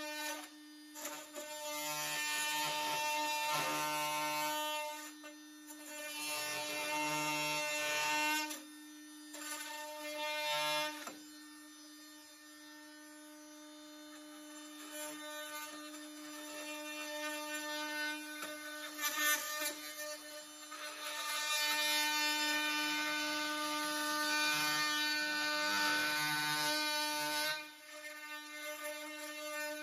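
Metabo HPT 18V cordless oscillating multi-tool running with a steady high buzz as its blade cuts into a wooden window header overhead. The buzz swells and drops as the blade bites and eases off, softer through the middle and louder again in the last several seconds.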